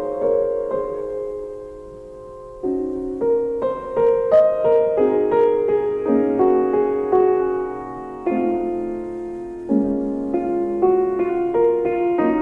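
Solo piano music, slow notes and chords struck and left to ring, with a brief lull about two seconds in.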